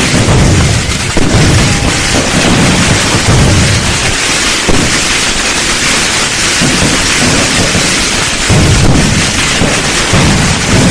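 Dense fireworks barrage: a steady hiss of crackling with deep booms swelling and overlapping every second or two, never falling silent.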